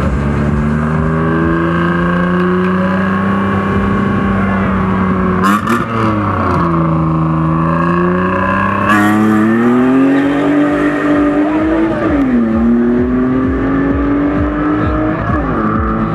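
Car engine accelerating hard through the gears: its pitch climbs steadily and drops at each upshift, about five and a half, twelve and fifteen seconds in. Sharp cracks come with the first shift and again about nine seconds in, where it gets louder.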